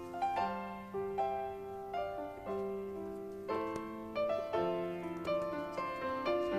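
Background piano music: a gentle melody of held notes.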